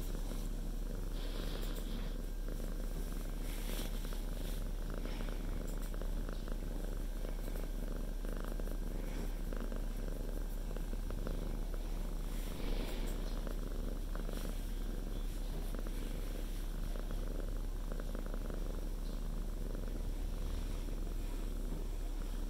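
Domestic cat purring steadily, very close to the microphone.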